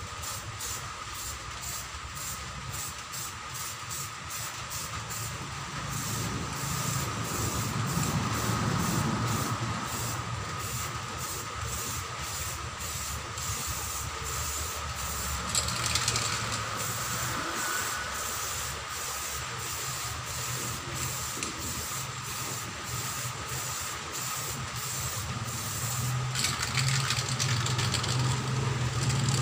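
Samurai aerosol spray paint can hissing in bursts as paint is sprayed onto an alloy wheel, clearest about halfway through and again near the end. A steady mechanical hum with faint regular ticking runs underneath.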